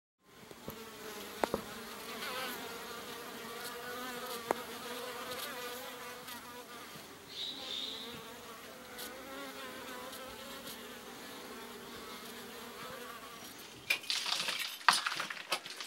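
Honeybees from a colony nesting in a wall hive buzzing steadily, a dense hum whose pitch wavers slightly. About fourteen seconds in, a run of sharp clattering knocks sets in over it.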